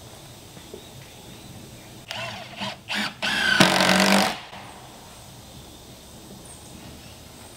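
Cordless drill driving a screw into a wooden siding board. The motor whines in three runs, two short and then a longer one of about a second, and the first run rises in pitch as it spins up.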